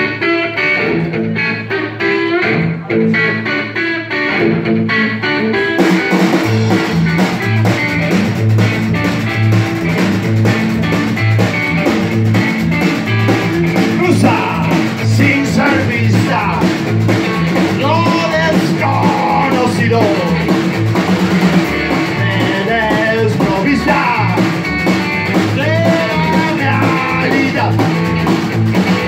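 Live rock and roll band: electric guitar opens alone, then about six seconds in the standing drum kit and upright bass come in with a steady driving beat, and singing joins the band partway through.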